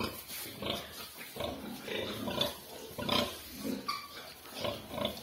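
Nursing sow grunting in a quick, regular rhythm, about two to three short grunts a second, while her litter of piglets suckles. A brief higher squeal about four seconds in.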